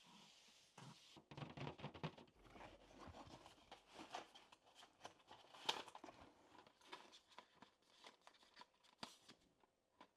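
Faint, irregular clicks, taps and crinkling of mechanical keyboard parts and their packaging being handled, with one sharper click about six seconds in.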